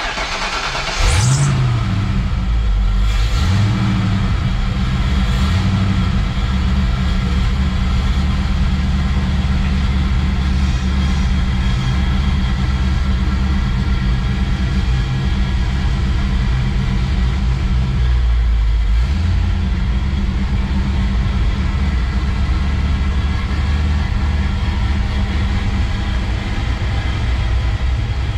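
1990 Ford Mustang 5.0 V8 starting about a second in, revving briefly a couple of times, then idling steadily with one more small rise in revs later on. The engine is running on a freshly fitted MSD distributor cap and rotor and starts smoothly.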